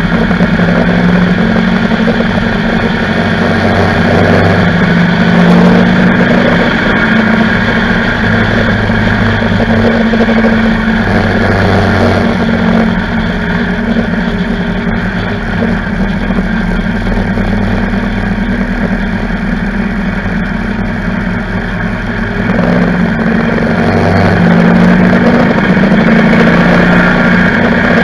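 Motorcycle engine running at road speed, with steady wind and road noise. The engine note eases off about three quarters of the way through and then picks up again.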